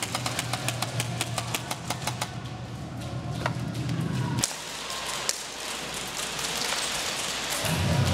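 Airsoft guns firing: a rapid, irregular string of sharp clicking shots for the first few seconds, thinning out after that, over a steady low hum.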